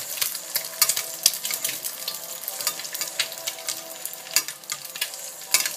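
Egg frying in hot olive oil in a skillet, sizzling and crackling with many small pops as the oil is spooned over it to baste it.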